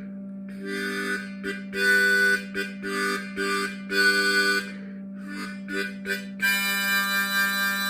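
Harmonica in the key of G played in a series of short chords and notes, ending in a longer held chord, over a steady low hum from a Samsung refrigerator that is abnormally loud for a week-old unit.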